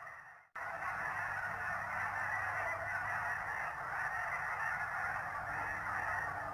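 A large flock of snow geese calling all together, a dense, steady chorus of overlapping honks as the birds come in to land. The sound cuts out briefly about half a second in, then resumes.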